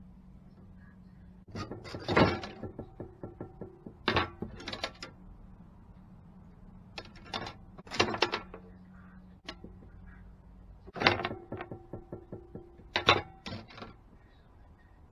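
Bursts of knocks and clatter, about five of them a few seconds apart, some with a short ringing after them: fishing rod pieces and a hacksaw being handled and worked against a hard tabletop.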